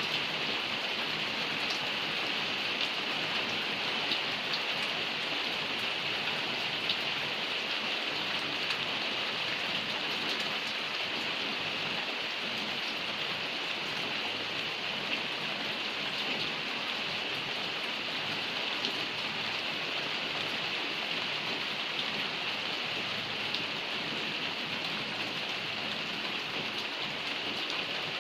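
Steady heavy rain falling and pattering on a surface, an even hiss with faint scattered drop ticks.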